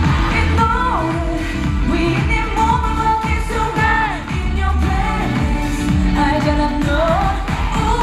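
A female K-pop singer singing live into a handheld microphone over a pop backing track with a heavy bass beat, amplified through a concert PA.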